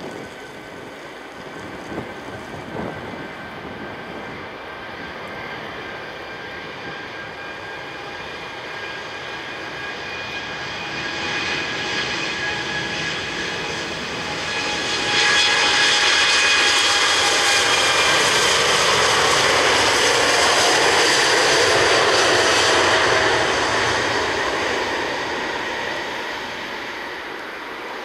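Jet airliner engines passing close: a whining engine sound that builds slowly, jumps suddenly louder about halfway through, stays loud for several seconds, then fades.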